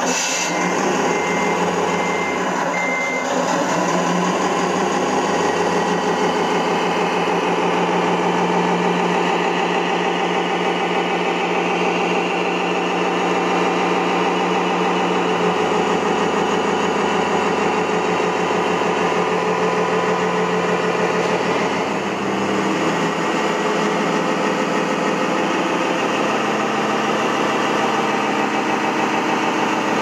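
Simulated diesel truck engine from the sound unit of a radio-controlled MAN truck, running steadily as the truck drives, its note shifting about two-thirds of the way through. A short run of high beeps sounds in the first few seconds.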